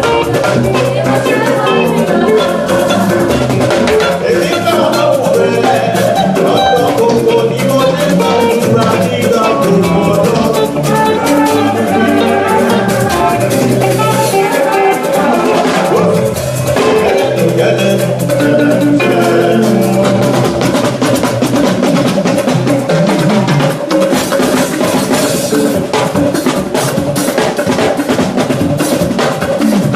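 Loud live band music with a drum kit and percussion keeping a steady beat under pitched instruments.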